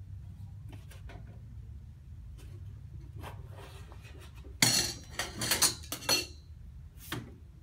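Stainless steel wind guard panels being slid into their corner slots around a chafing dish: light taps at first, then a quick run of loud metal clanks and scrapes with a brief ring a little past halfway, and one more knock near the end.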